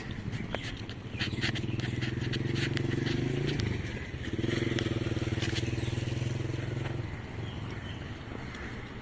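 A motor vehicle's engine running at a steady pitch, dropping out briefly about four seconds in and then resuming for a few more seconds before fading, with light footsteps on a concrete path.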